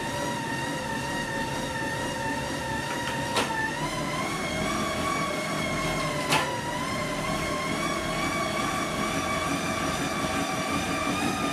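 Road bike spinning on cycling rollers: the tyres and roller drums make a steady whine whose pitch wavers and climbs a little with the rider's speed. Two sharp clicks, about three seconds apart, cut through it.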